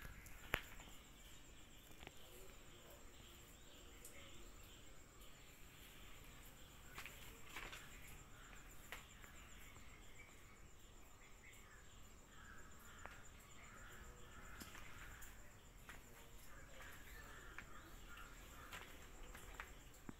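Near silence: faint background with a steady high-pitched whine and scattered soft clicks.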